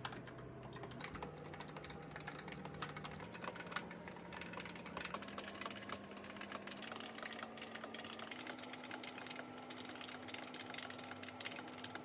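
Typing test on an RK84 mechanical keyboard fitted with lubed AKKO Cream Yellow Pro linear switches: a continuous stream of keystroke clicks, many per second.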